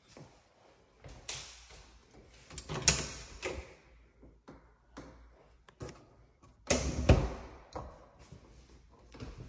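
Interior doors being opened and closed, with knocks and rubbing from a handheld phone; the loudest knocks come about three and seven seconds in.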